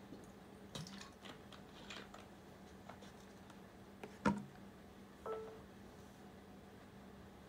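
Quiet room with a steady low hum and scattered light clicks and ticks; one louder knock about four seconds in, followed by a brief faint tone.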